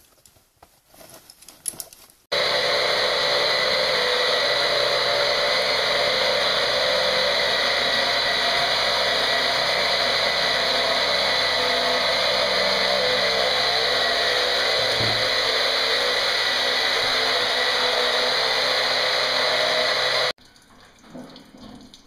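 A power drill runs continuously at a steady pitch in a narrow cave shaft. It starts suddenly about two seconds in and cuts off sharply near the end.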